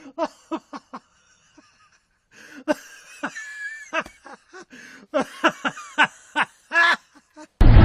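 Laughter in three stretches of short, quick bursts, with a brief high-pitched squeal of a giggle in the middle.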